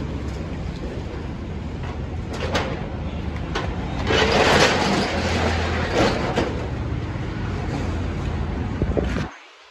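Corrugated steel rolling shutter being pulled up, with a loud metallic rattle about four seconds in and a few knocks and clanks around it.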